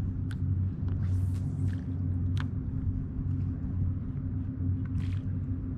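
Steady low rumble, with a few brief faint noises over it.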